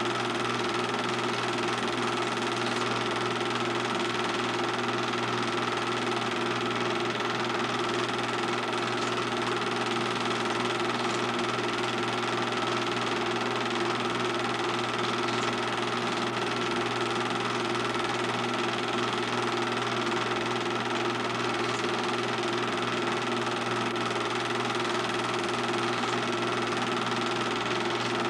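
Film projector running: a steady mechanical whir and hum.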